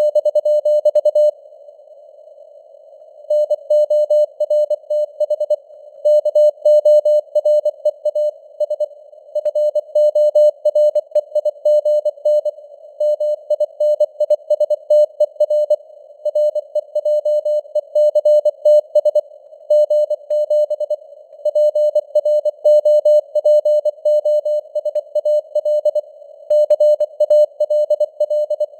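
Morse code sent at 24 words per minute as a single keyed tone, short dots and longer dashes in a quick on-off rhythm, over simulated radio static. The keying stops for about two seconds shortly after the start, leaving only the static.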